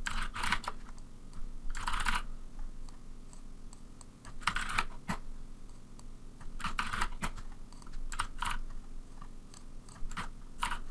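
Computer keyboard typing in short bursts of keystrokes, about six bursts with pauses between them.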